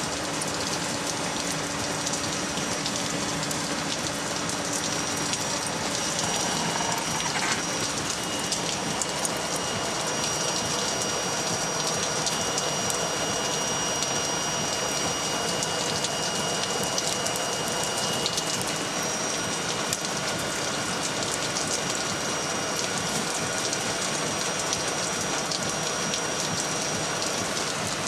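Electric hot-air charcoal lighter blowing steadily into lump charcoal, with a thin high whine, while the igniting coals crackle and pop in many small sparks.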